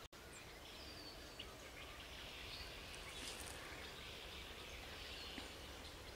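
Faint outdoor ambience: a steady low background hush with a few brief, faint bird chirps.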